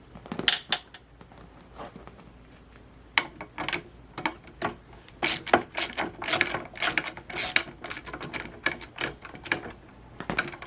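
Irregular metallic clicks and clinks of a MaxiClimber Classic's rollers and frame parts being handled during a roller swap: a couple of knocks about half a second in, then a busy run of clicks from about three seconds on.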